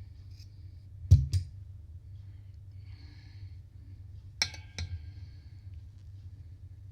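Sharp clicks of knitting needles knocking together: two about a second in and another few around four and a half seconds, over a steady low hum.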